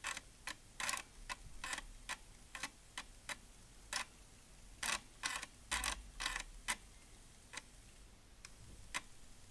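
Chinon FB-354 3.5-inch floppy drive, uncased, reading a boot disk: the head-positioning stepper clicks irregularly, sometimes in quick pairs or runs, as it steps the read head from track to track. The drive is working normally and loads the disk without errors.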